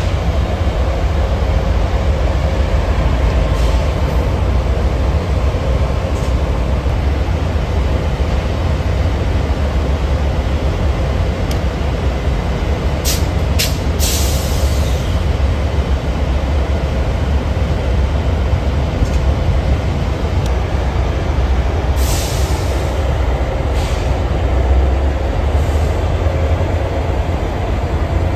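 Diesel-electric locomotive idling with a loud, steady low rumble. Short bursts of hiss and a few clicks come about halfway through and again a few seconds later.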